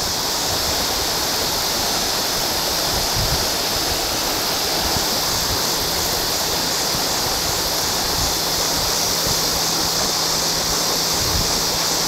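Creek water rushing steadily as it pours over a small waterfall, a constant hiss of moving current.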